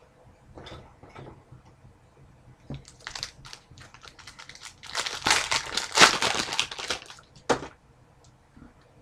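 Crinkling and tearing of a hockey trading card pack's wrapper being ripped open, building from about three seconds in to its loudest stretch two seconds later and ending in one sharp crackle.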